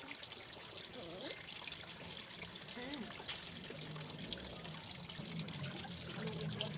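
Water trickling steadily into a big plastic bin used as a soaking tub.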